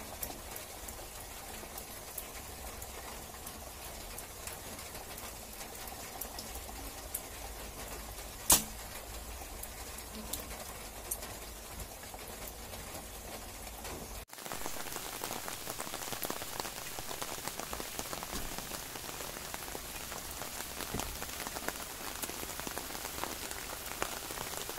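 Steady rain falling, a fine patter of drops. A single sharp snap stands out about eight and a half seconds in, and after a cut about fourteen seconds in the rain is louder and denser.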